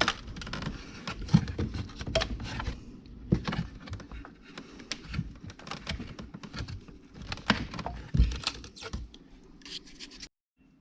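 Irregular scraping, rubbing and clicking from hands working a frozen refrigerator ice maker loose, plastic and built-up ice knocking and scraping. It cuts off suddenly near the end.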